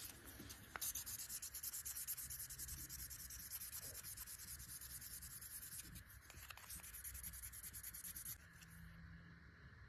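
Sandpaper rubbed rapidly back and forth by hand on the blade of a small pocket knife, a fast run of fine scratchy strokes that stops about eight seconds in.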